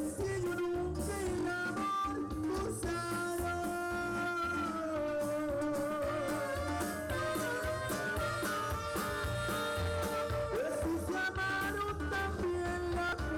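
Live norteño band playing dance music through stage loudspeakers: a held melody line over bass and a steady drum beat.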